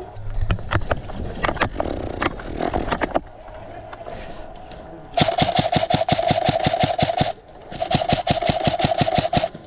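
An electric airsoft gun firing two full-auto bursts of about two seconds each, with rapid, even clacking over a steady motor whine. Scattered clicks and knocks come before the bursts.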